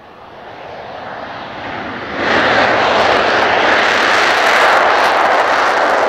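Mitsubishi F-2B fighter's jet engine at high power as the jet rolls fast down the runway. The sound swells for about two seconds, then jumps suddenly to a loud, steady jet noise that holds.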